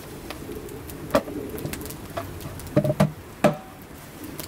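A rough wooden plank knocking several times as it is handled and set down, over the steady crackle of a wood campfire. The knocks come about a second in, twice near three seconds and once more just after.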